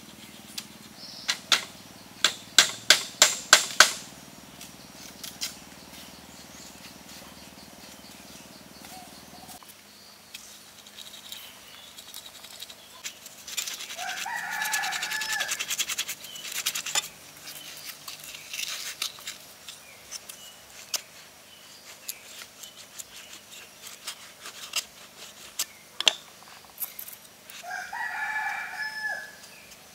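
A quick run of about eight sharp knocks a couple of seconds in, then light scraping and tapping from bamboo handwork. A rooster crows twice in the background, about midway and again near the end.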